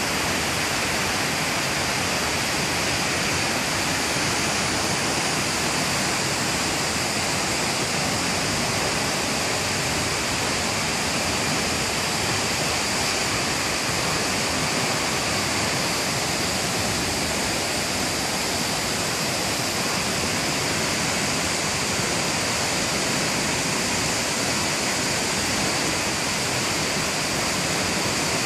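Gorogataki Falls' water pouring down in a steady, unbroken rush.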